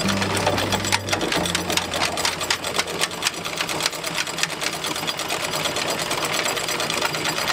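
Anchor chain paying out through the bow windlass and over the bow roller as the anchor is let go, a fast, continuous metallic rattle of links. A steady low hum runs underneath, strongest in the first second.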